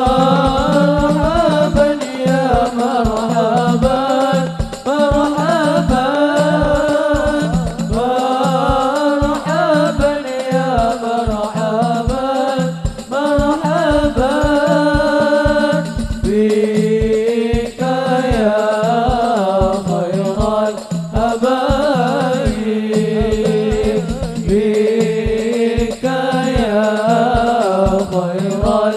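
Arabic sholawat sung to a hadroh ensemble, with frame drums (rebana) beating a quick, steady rhythm under a wavering, melismatic vocal melody.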